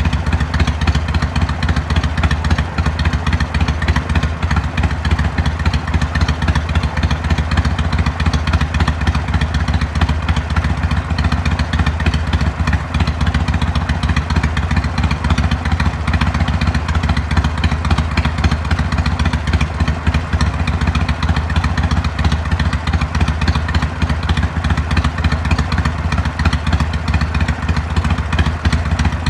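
Harley-Davidson Iron 883's air-cooled V-twin running steadily through a Jekill & Hyde valve-controlled exhaust, a deep, fast pulsing beat with no revving.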